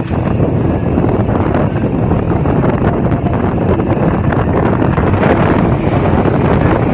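Strong wind buffeting the microphone in a loud, steady rush.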